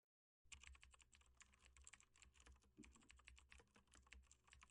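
Faint computer keyboard typing, many rapid irregular key clicks over a low hum, starting about half a second in.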